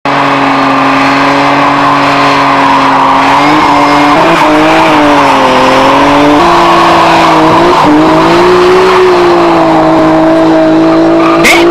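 Toyota Supra's straight-six engine held at high revs while its rear tyres spin and squeal, a loud steady note whose pitch steps up a little over three seconds in and again past six seconds. A sharp crack comes near the end.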